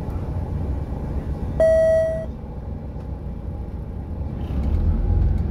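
Inside a Volvo 8900 bus on a B7RLE chassis: the diesel engine rumbles steadily, and a single electronic beep of under a second sounds about a second and a half in. Near the end the engine's rumble grows louder as the bus starts to move off.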